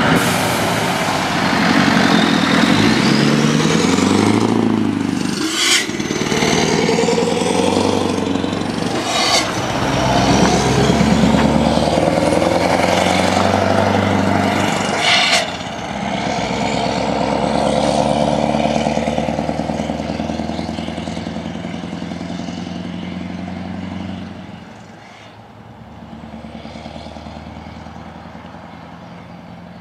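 Scania R500 V8 diesel with straight-through loud exhaust pipes, pulling a loaded trailer and accelerating, its pitch rising in each gear with brief breaks at about three gear changes. After the last change it settles into a steady pull and fades as it drives away.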